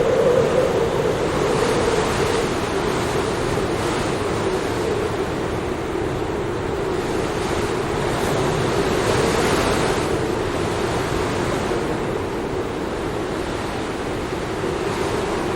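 Snowstorm wind blowing as steady noise, with a hollow tone a little below the middle of the range that swells and eases slowly over several seconds.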